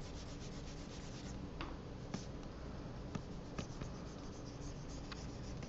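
Faint scratching and rubbing of a pen stylus stroking across a graphics tablet as shading is brushed in, with several light clicks along the way.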